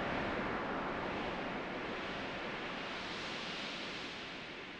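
Designed conveyor ambience sound effect: a steady rushing hiss with no distinct beat, gradually fading out.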